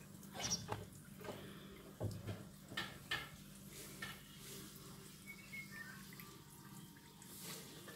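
Live shrimp flicking in shallow water in a plastic basin: a scatter of small splashes and clicks, most of them in the first few seconds.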